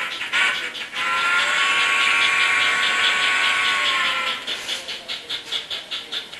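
Steam-locomotive sound from an HO-scale model's DCC sound decoder: a whistle sounding a short toot, then a long blast of about three seconds that sags in pitch as it dies away, over a steady beat of exhaust chuffs, about four to five a second, which carries on alone near the end.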